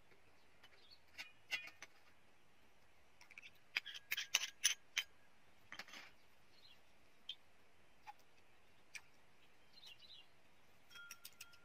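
Metal spoon clinking and tapping against a small cut-glass bowl as seasonings are spooned in, a handful of sharp clinks, most of them a little before the middle. A few faint high chirps come in between.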